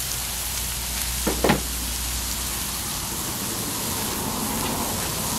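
Whiting and salmon fillets sizzling in oil on a hot propane flat-top griddle: a steady frying hiss. Two short, louder sounds come about a second and a half in.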